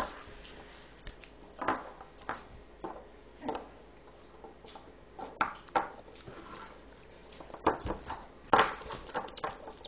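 Hard plastic toy animal figures knocking and clacking against a wooden tabletop as they are picked up, moved and set down, in scattered light knocks roughly a second apart.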